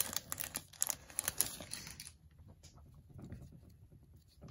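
Foil wrapper of a baseball card pack crinkling and crackling as it is torn open and peeled off the cards, for about two seconds. It then gives way to faint ticks of the card stack being handled.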